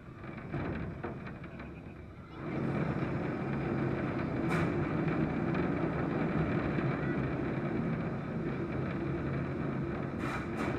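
One-pound combat robot's electric motor starts up about two seconds in and runs at a steady whirring pitch. There is a sharp hit a couple of seconds later and two more near the end.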